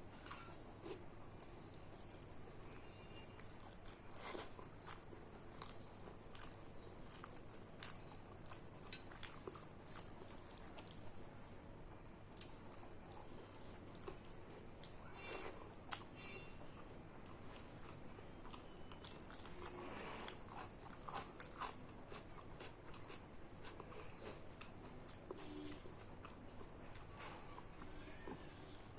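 Faint chewing and biting of a person eating rice with fish curry, dal and fried pumpkin, made of many small mouth clicks and soft crunches with a few louder bites spread through.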